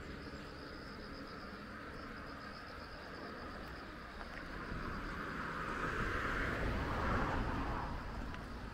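Insects chirping steadily in a high, pulsing trill, with a vehicle passing that swells up over a few seconds in the second half and fades away near the end.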